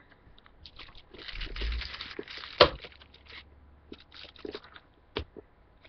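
Tin foil around a chocolate bar crinkling as it is handled, with one sharp click partway through and a few small ticks near the end.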